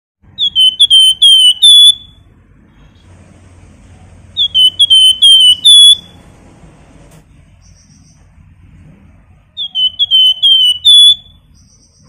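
Caged flamboyan songbird giving its 'nyiul' call: three loud phrases of about five quick whistled notes, each note sliding downward, repeated roughly every four seconds.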